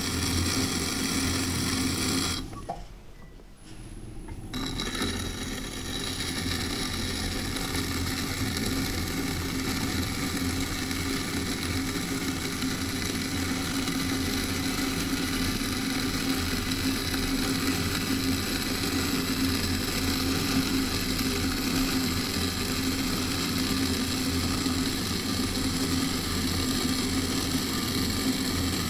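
Electric potter's wheel motor running steadily with a metal tool cutting into the clay of the spinning pot. About two and a half seconds in the sound drops away for a couple of seconds, then builds back up.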